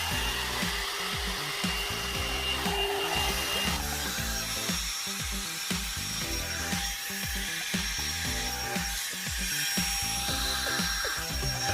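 Background music over the steady whir of a one-step hot-air brush hair dryer running, its bristled barrel rubbing through hair.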